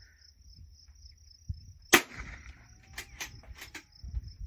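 A single shot from a Bergara .22 LR bolt-action rifle about two seconds in, one sharp crack, followed about a second later by a few quick clicks. A steady high insect trill runs underneath throughout.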